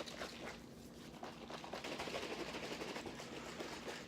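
Protein shaker bottle being shaken by hand to mix the powder, a faint rustling, rattling noise with scattered clicks that is densest in the middle.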